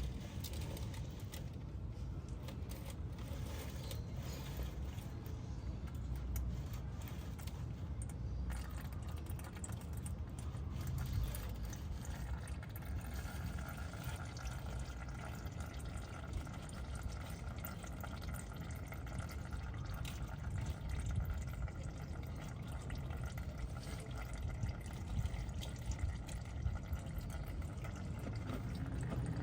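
Engine oil flowing in a steady stream, trickling and splashing.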